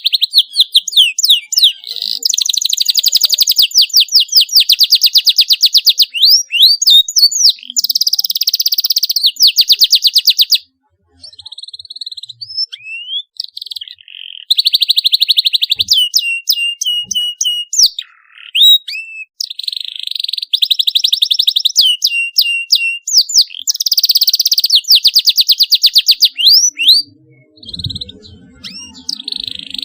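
Canary singing: long, very rapid trills and sweeping chirps in phrases of several seconds, with a pause of about three seconds around eleven seconds in. It is the 'cuit cuit' chirping played as a lure to get young canaries to start singing.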